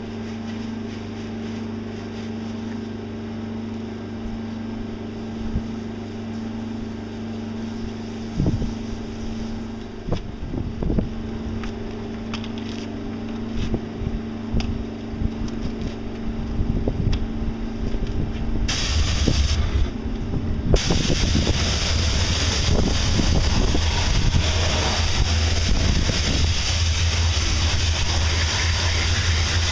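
A steady machine hum with a few scattered knocks, then, about nineteen seconds in, pressure-washer spray starts hissing hard against the wheel and tyre. It stops briefly, then sprays on continuously with a deeper motor hum underneath.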